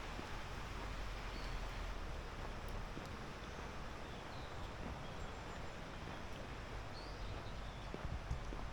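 Steady rushing outdoor noise with a few faint, short, high bird chirps scattered through it.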